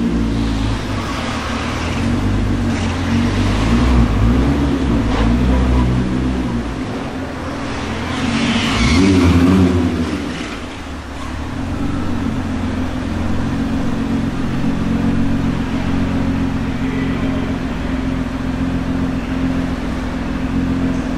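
Nissan GT-R R35's twin-turbo V6 running as the car rolls slowly past, with a short rev about eight to ten seconds in, then idling steadily. Heard in an underground car park.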